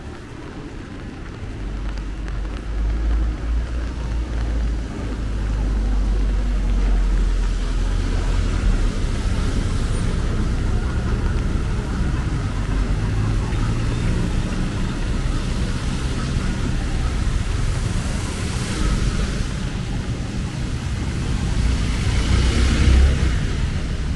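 Street traffic: motor vehicles running and passing close by, with a steady low rumble and louder passes near the end.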